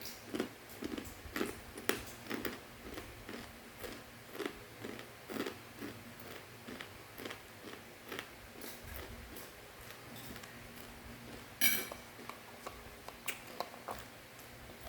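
Crunchy fried macaroni snack being bitten and chewed close to the microphone: irregular crunches a few times a second, with one louder crackle about twelve seconds in.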